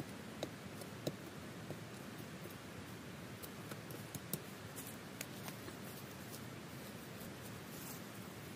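Machete cutting at small stems and roots among dry leaf litter: a few sharp clicks in the first two seconds, the loudest just after one second, then a run of fainter snipping ticks.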